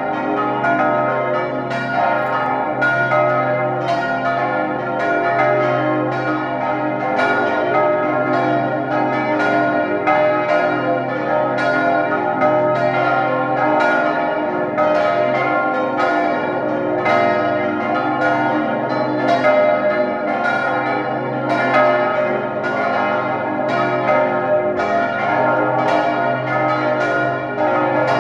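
Full peal of a church's swinging bells, most of them cast by Johann Hahn of Landshut, the largest tuned to A-flat, all ringing together. The strikes overlap in a dense, unbroken clangour of several strokes a second.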